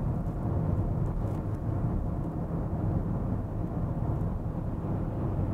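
Steady low cabin noise of a new BMW X5 cruising at 100 km/h, road and tyre noise heard from inside the car. A sound level meter puts it at about 58 dB.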